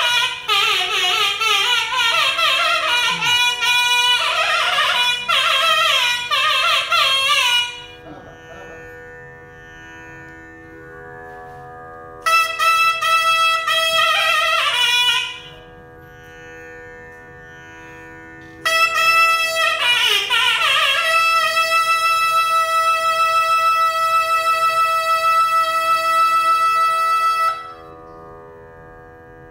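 Nagaswaram playing free, ornamented melodic phrases without drums, over a steady drone. It plays three phrases with pauses where only the drone sounds, and the last phrase settles into a long held note that stops near the end.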